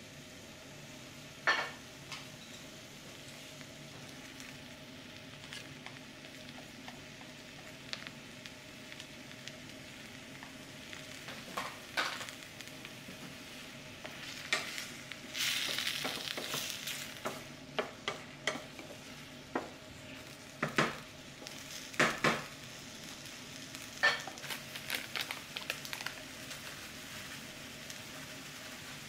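Tomatoes and onions sizzling as they fry in a stainless steel sauté pan, with scattered knocks and scrapes of a wooden spatula against the pan as it is stirred. About halfway through, the sizzle briefly grows louder.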